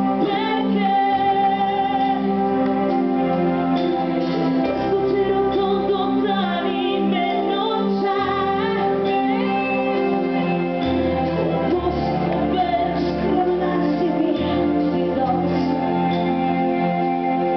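Woman singing a pop ballad live into a microphone over instrumental backing of held chords and bass.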